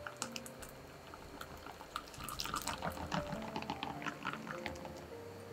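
Wire whisk stirring strawberry puree into a creamy mixture in a glass bowl: wet squelching with quick clicks, busiest in the middle of the stretch.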